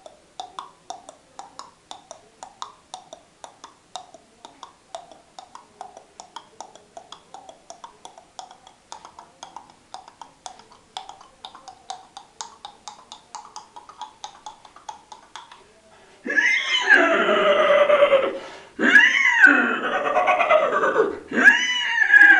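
A man imitating a horse with his voice: a long run of tongue clicks, about four a second, like trotting hooves. About sixteen seconds in come three loud whinnies, each wavering and falling in pitch.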